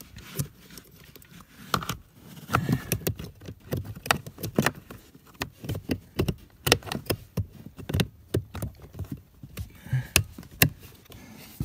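Handling noise: irregular clicks, taps and rustles, busiest from about two and a half seconds in, as hands work a blower motor's wiring connector and harness under a pickup's dashboard.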